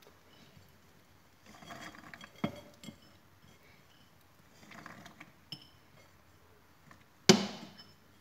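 Pomegranate seeds shaken from a bowl into a juicer's plastic feed chute: two short spells of soft rattling, a few light clinks, and one sharp knock of the bowl against the chute near the end. The juicer motor is not running.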